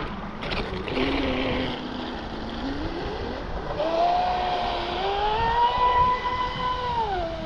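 Pro Boat Sonicwake 36 RC boat's brushless motor running on the water: a whine that starts low, climbs steeply about three seconds in, holds high, then drops back near the end as the throttle eases.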